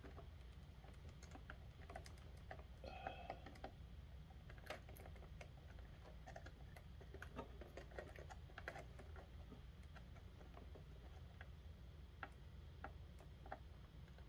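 Faint, irregular small clicks and taps of fingers handling wires and plastic terminal connectors on a circuit board, over a low steady hum.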